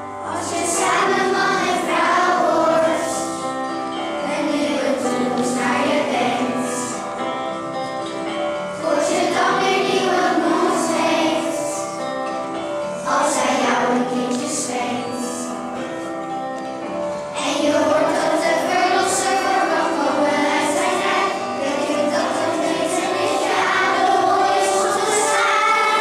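Children's choir singing together, in phrases a few seconds long with brief breaths between them.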